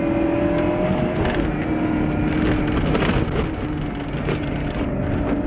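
Off-road vehicle's engine running steadily on the throttle, heard from inside the cabin, with knocks and rattles as the vehicle jolts over a rough dirt track.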